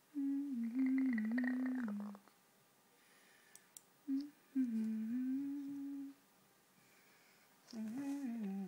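A woman humming a slow, wandering tune in three short phrases with pauses between. A rasping sound joins the first phrase.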